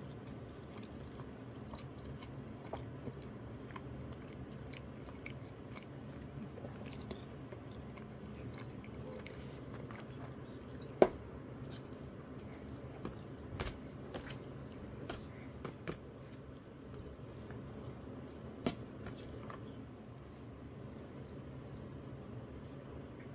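Soft eating sounds: chewing, with scattered clicks and taps of metal chopsticks against black plastic delivery trays, one sharper tap about 11 seconds in, over a steady low room hum.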